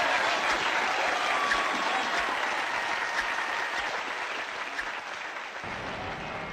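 Theatre audience applauding, the clapping slowly growing fainter.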